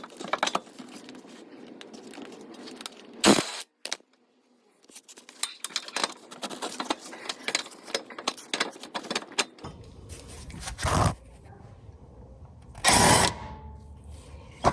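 Metal tools and suspension hardware clinking and scraping during an end-link install, with several sharp clicks and a few short, loud bursts about three, eleven and thirteen seconds in.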